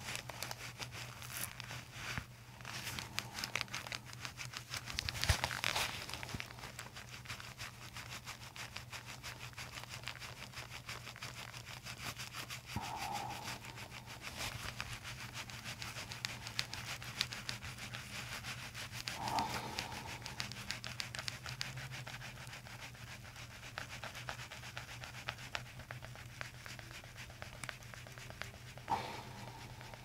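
Fingers rubbing and kneading through a person's hair and scalp right at the microphone: a steady, crackly rustling.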